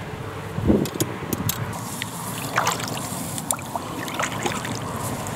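Sit-on-top kayak being pushed off and paddled: water splashing and trickling around the paddle and hull, with scattered knocks against the boat and a heavier thump less than a second in.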